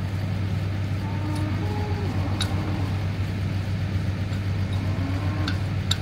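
An engine idling steadily, with a few sharp metal clinks from a steel corral gate being set back on its post, the clearest near the end.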